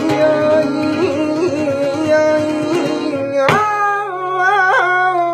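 Male flamenco singer drawing out long melismatic notes, his voice wavering in ornaments, over acoustic guitar. A new held note starts about three and a half seconds in.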